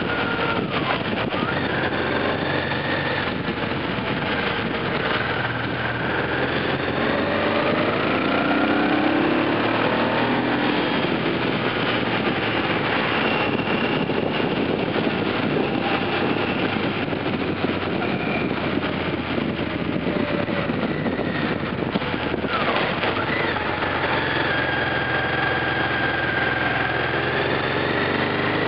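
Yamaha T-Max maxi-scooter's parallel-twin engine heard from on board while riding, its note slowly rising and falling as it speeds up and slows. A steady rush of wind and road noise runs under it.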